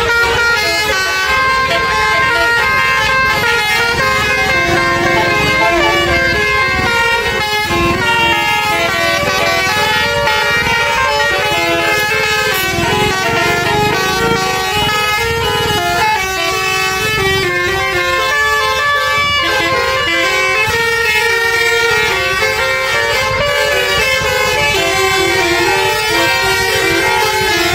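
Several tour buses' basuri melody horns play at once: overlapping multi-note horn tunes stepping from note to note without a break, loud throughout. A horn battle between the buses, over crowd voices.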